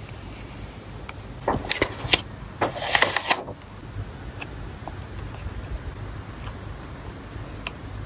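A clear plastic photocard sleeve crackling and rustling as a photocard is slid into it and handled, with a few sharp clicks followed by a dense burst of crinkling in the first half. Afterwards only a few faint light ticks of the card being handled.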